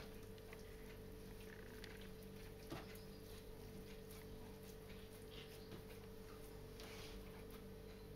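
Near silence: a steady low hum with faint rustles and small taps from hands handling the rolled pork belly on the worktop, and one soft knock a little under three seconds in.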